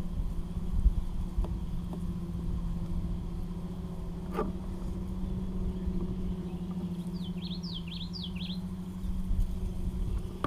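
Steady low hum of a boat motor over a rough low rumble. Between about seven and eight and a half seconds in, a bird gives a quick run of short, falling chirps.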